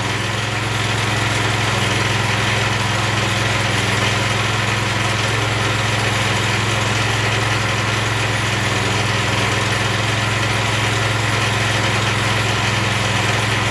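Pressure washer's small gasoline engine running steadily at an even speed, with no change in pitch.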